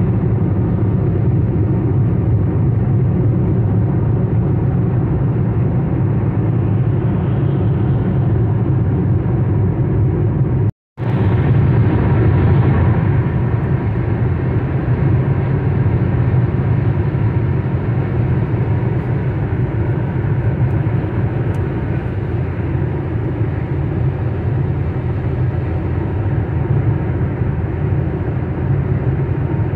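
Steady road noise inside a car cruising on a wet highway: tyres and engine running at speed. The sound cuts out completely for a moment about eleven seconds in, then resumes.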